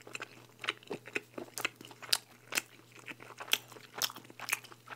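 A person chewing a bite of thin-crust pizza, with crisp, irregular crunches of the crust about one or two a second.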